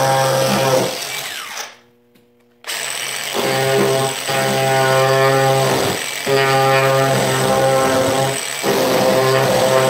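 Background music with a low droning tone in phrases of about two seconds, dropping almost to silence about two seconds in. From then on a thin high whine runs under it, which fits a rotary power tool with a ball-shaped bit carving a mahogany spoon bowl.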